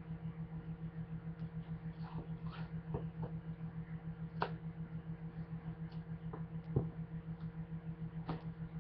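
A knife scraping and clicking against a cardboard box as it cuts through packing tape: a few scattered scratches and taps over a steady, pulsing low hum.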